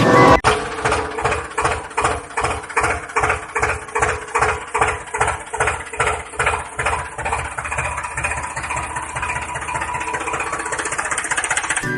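Tractor engine running at idle with a slow, even chug that smooths into a steadier drone after about eight seconds.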